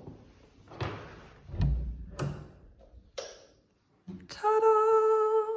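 A room door being handled and opened: a few light knocks and a low thump. After a brief silence comes one loud, steady held note, the loudest sound here.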